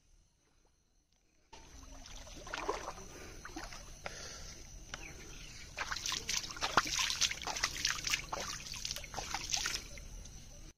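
Pond water splashing and sloshing in irregular bursts, starting about a second and a half in and strongest in the second half, as the water is stirred to push a floating lamp box out.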